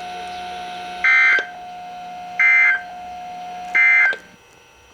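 Three short bursts of NOAA Weather Radio SAME digital data screech, each about a third of a second long and about 1.3 s apart. These are the end-of-message codes that close the Required Weekly Test. A faint steady hum from the radio runs beneath and drops away after the third burst.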